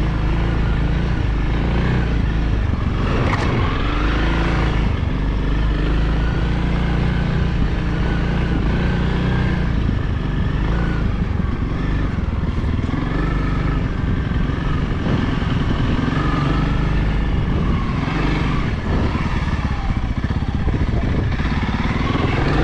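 Honda CRF300L single-cylinder dirt-bike engine running as the bike is ridden on a slick, icy trail, its revs rising and falling.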